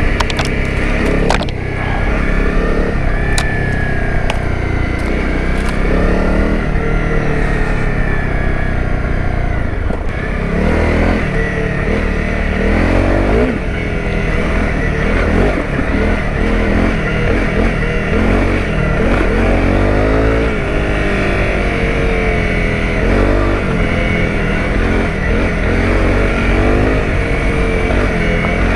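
Honda CRF250 Rally's single-cylinder four-stroke engine being ridden, its pitch rising and falling again and again as the throttle is worked and gears change. A few sharp clicks come in the first few seconds.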